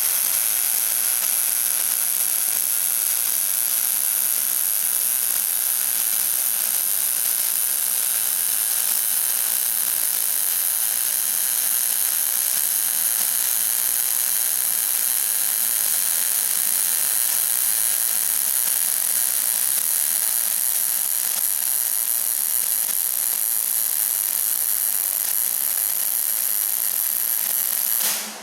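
Small 110-volt wire-feed welder laying one long continuous bead, joining a 1/4-inch flat-stock stop to a steel tractor wheel rim: a steady, bright hissing crackle of the arc that cuts off suddenly at the end.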